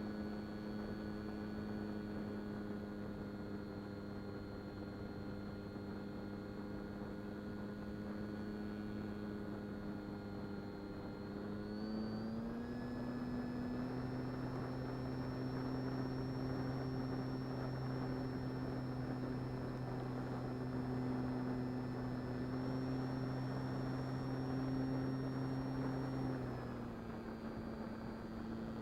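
Durafly Excalibur RC plane's electric motor and propeller, a steady whine. About twelve seconds in the pitch rises slightly as the throttle goes up, holds, and drops back a little near the end.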